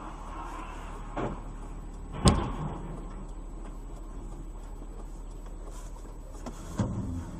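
Steady car road and engine noise, with a soft knock about a second in, a sharp loud bang a second later, and another knock near the end.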